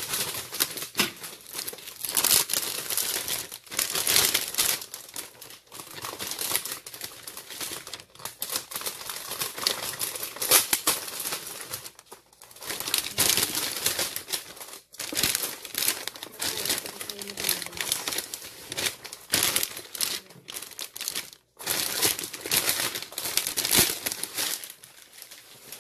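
Clear cellophane gift wrap crinkling as it is handled and pulled off a gift box, in dense irregular rustles with a few short pauses.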